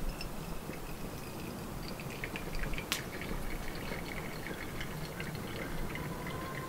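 Hot water poured in a thin stream from a kettle onto coffee grounds in the steel mesh filter of a glass pour-over coffee maker, trickling and dripping, with small splashy ticks that become busier about two seconds in and one sharp click near the middle.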